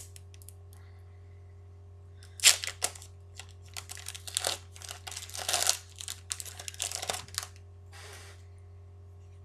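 A foil Pokémon booster pack being torn open and its wrapper crinkled: a run of sharp tearing and crinkling noises starting a couple of seconds in, the first the loudest, with a softer rustle near the end.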